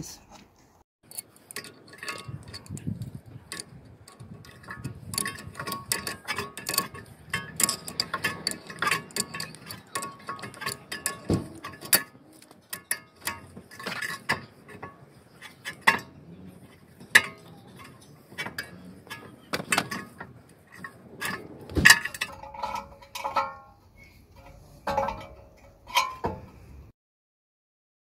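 Irregular metal clicks and clinks, some with a brief ring, from a screw-type brake caliper piston compressor tool being set against the front brake caliper and wound to push the piston back into its bore.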